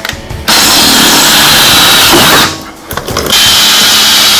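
Handheld power tool running at full speed in two runs of about two seconds each, stopping briefly in between, with a steady high whine over its noise.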